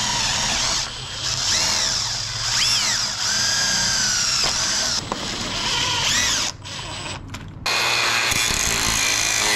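Makita cordless drill boring into a plastic cart handle, its motor speeding up and slowing several times. It stops about six and a half seconds in. About a second later a different, steadier sound takes over.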